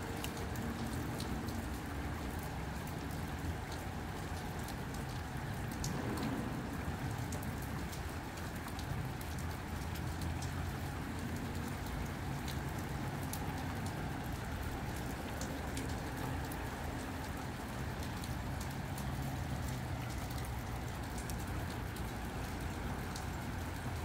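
Steady rain falling, with scattered sharp drop ticks over a low, gusting wind rumble.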